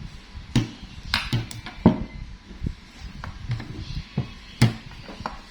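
An irregular series of knocks and taps on a tabletop, about one or two a second, a few with a short ringing tone.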